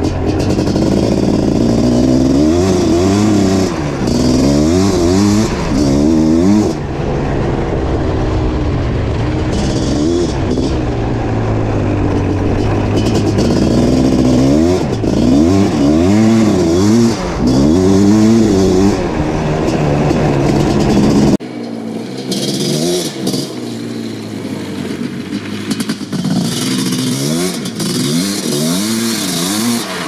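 Suzuki LT500R Quadzilla's 500cc single-cylinder two-stroke engine, breathing through an FMF Fatty pipe and Powercore silencer, revving hard through repeated accelerations, the pitch climbing and dropping again and again. About two-thirds of the way through the sound turns abruptly thinner, with less bass, as the quad is heard from beside the track instead of from on board.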